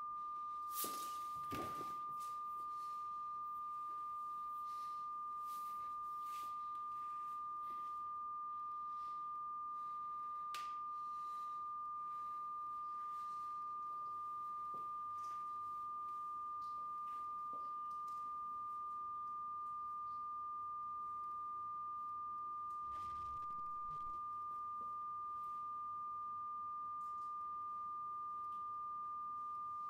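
A single steady, high-pitched pure tone held at one unchanging pitch, like a sine-wave ringing. A few faint knocks sound about a second in and again around ten and twenty-three seconds in.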